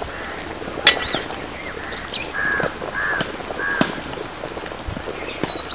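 A bird calls three times in quick succession, about two-thirds of a second apart, over scattered pops and crackles from a wok of curry boiling hard over an open fire. A sharp crack sounds about a second in.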